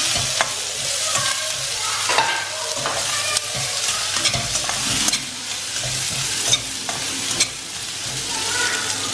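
Sliced onions sizzling in hot oil in a stainless steel kadai while a metal spatula stirs and scrapes them around the pan. Two sharp metallic clinks of the spatula on the pan come about two-thirds of the way through.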